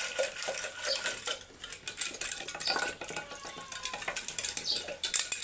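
A churning stick (mathani) twirled by hand in a small metal pot, rattling and clicking quickly against the pot's sides as curd and sugar are churned into lassi.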